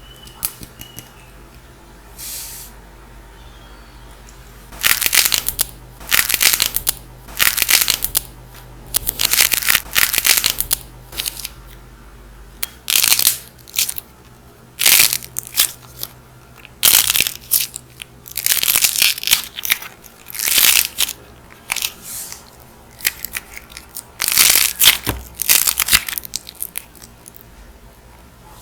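Dried clay being cracked and crumbled: a long series of crisp crackling crunches, about one a second, starting about five seconds in.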